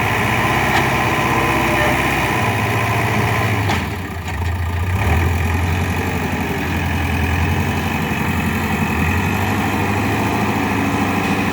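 JCB 3DX backhoe loader's diesel engine running steadily. It dips briefly about four seconds in, then picks up again with a deeper, stronger note.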